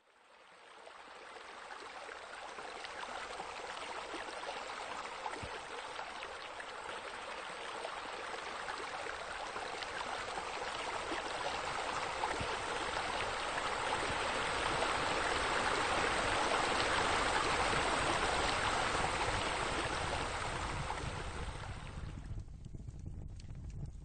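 Steady rush of running, splashing water, fading in at the start and swelling to its loudest past the middle. About two seconds before the end the hiss drops away, leaving a low rumble.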